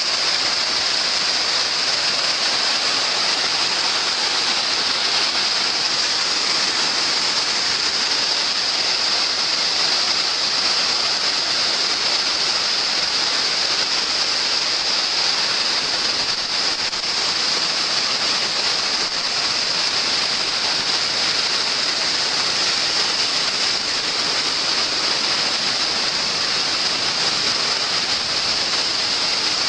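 Waterfall: a steady, unbroken rush of falling water, bright and hissy.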